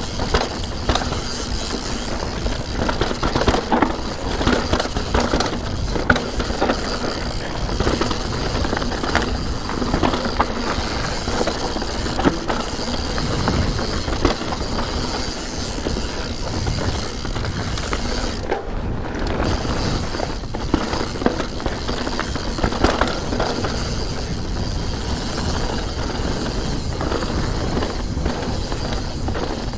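Santa Cruz Nomad 4 mountain bike rolling fast down a rough dirt trail: steady tyre noise on dirt and leaves, broken by frequent clattering knocks as the bike rattles over bumps and roots.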